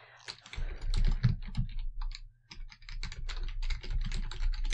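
Typing on a computer keyboard: quick, irregular keystrokes with a short pause about two seconds in, as a web address is typed.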